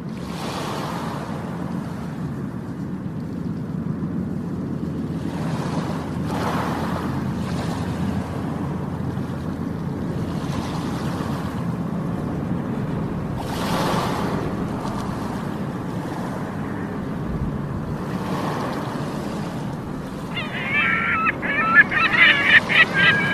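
Sea surf washing onto the shore, with a wave surging every few seconds over a steady low rumble of water. Near the end, seagulls break in with a quick series of loud, shrill calls.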